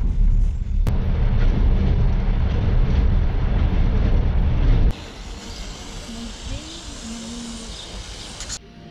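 Passenger train running at speed: a loud, steady low rumble with a rushing noise over it. About five seconds in it cuts to much quieter outdoor ambience with faint voices.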